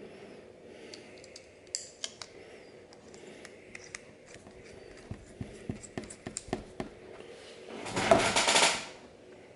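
Small knurled chrome metal caps clicking and clinking against each other as they are handled and fitted together, a string of sharp light clicks, followed near the end by a louder noise lasting about a second.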